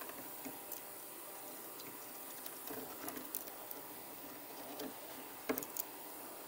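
Faint clicks and light taps of hands handling the steering wheel's hub parts while fitting it, with two sharper clicks about five and a half seconds in.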